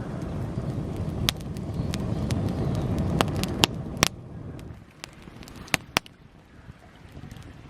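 Wood campfire crackling with sharp pops and snaps over a low rushing roar; the roar fades out about four seconds in, leaving scattered pops.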